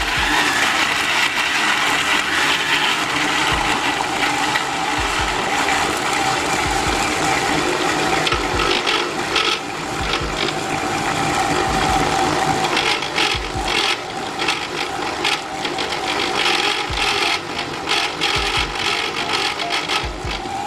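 Electric blender running, grinding raw chicken breast with boiled potato and spices into a paste: a steady motor with a gritty rattling of the food in the jar, stopping abruptly at the end.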